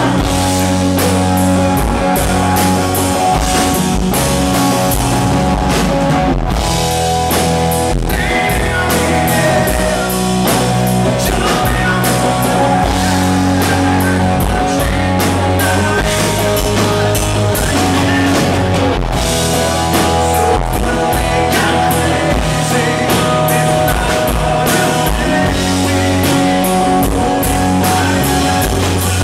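Live rock band playing, with electric guitar, bass and drum kit keeping a steady beat under a male lead vocal sung into a microphone.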